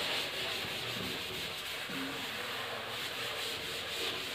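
Chalkboard eraser rubbed across a green chalkboard, wiping off chalk writing: a steady, scratchy rubbing.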